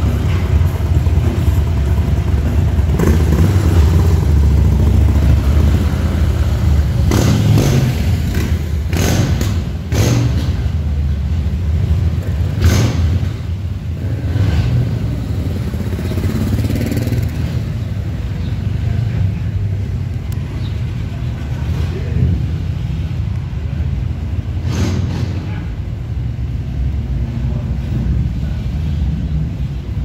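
Motorcycles pulling away and riding past, led by the deep, loud exhaust rumble of a Harley-Davidson V-twin bagger. A cluster of sharp throttle blips comes about seven to ten seconds in, with single blips again near thirteen and twenty-five seconds, and the rumble eases off in the second half.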